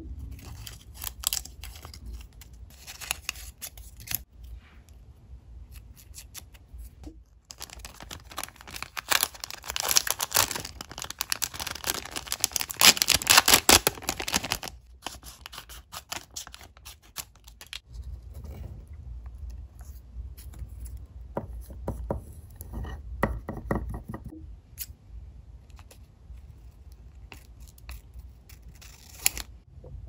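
Paper-craft handling sounds: a sheet of clear plastic film crinkling, scissors cutting and tape being peeled, in quick crackly strokes. The sound is densest through the middle, with scattered taps and rustles either side.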